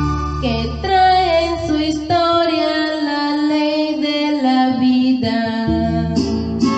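Corrido song with singing over guitar: the voice holds long notes that slide downward. The bass drops out for a few seconds in the middle and comes back near the end.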